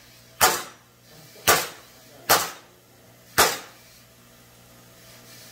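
Hammer striking a bent valve push rod from an Allis-Chalmers tractor engine laid on a metal tabletop, hammering it straight. There are four sharp metallic blows, roughly one a second, each ringing briefly.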